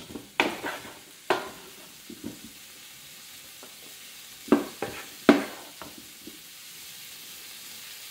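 Two wooden spatulas stirring and tossing vegetables and pork in a large nonstick pan: several sharp knocks and scrapes of wood on the pan, the loudest a little past halfway, over a steady sizzle of frying.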